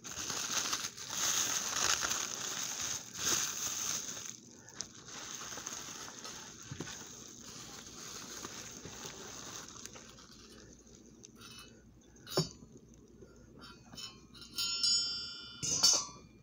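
Plastic bubble wrap and packing material being handled and pulled from a cardboard box, rustling and crinkling, loudest in the first few seconds. A sharp knock about twelve seconds in and brief squeaky sounds near the end.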